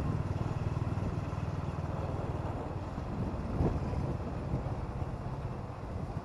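Small motorcycle engine running at low speed as the bike rolls slowly, a steady run of low exhaust pulses that slowly gets quieter.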